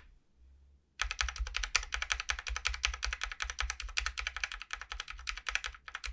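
Stabilized keys of a GMMK Pro (backspace, enter, shift) on its factory GOAT stabilizers, given extra Krytox 205g0 lube, over Cream linear switches, pressed again and again: a fast, dense run of clacks that starts about a second in. The stabilizers still sound a little bit off despite the extra lube.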